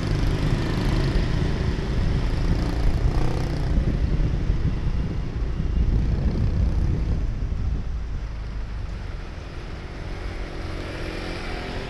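Street traffic: a steady low rumble of vehicle engines, easing somewhat after about eight seconds.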